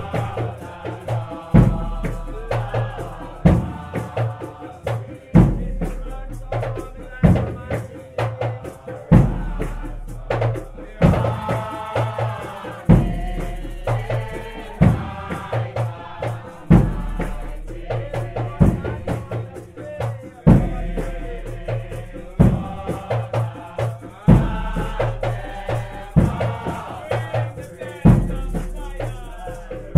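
Nyabinghi drumming under a group singing a hymn: a deep bass drum struck about every two seconds, with quicker strokes from the funde and kette hand drums between.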